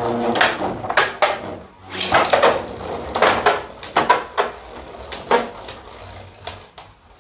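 Two Beyblade Burst spinning tops, Spriggan Requiem and Judgment Joker, battling in a plastic stadium. About a dozen sharp, irregular clacks sound as they collide with each other and strike the stadium wall, over the faint whir of their spinning.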